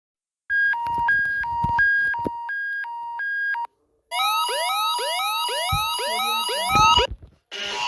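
Electronic emergency-alert tones. First comes about three seconds of a two-tone signal switching back and forth between a high and a low pitch. After a short break come about three seconds of rising whoops, roughly two a second, over a steady tone, and a different, noisier alarm sound begins near the end.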